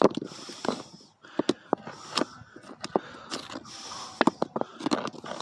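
A rock being set down and shifted on the ground, giving irregular short knocks and scrapes.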